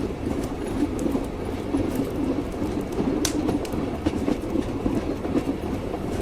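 Train wheels clattering on the rails with a steady rumble, as heard riding in a railway carriage. A single sharp tick stands out about three seconds in.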